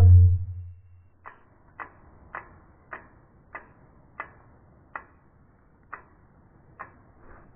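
Sound effects of an animated channel logo: one deep boom hit, dying away over about a second, then a series of short, sharp ticks, one every half second to a second.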